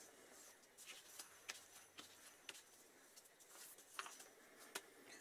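Faint, scattered light clicks and taps of metal parts being handled: a freshly pulled alternator rotor and its puller bolt, over quiet room tone.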